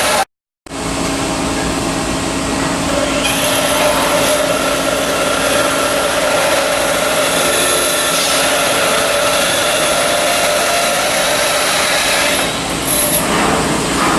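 Loud, steady shipyard machinery noise with a constant hum under a hiss, broken by a brief silent gap about half a second in.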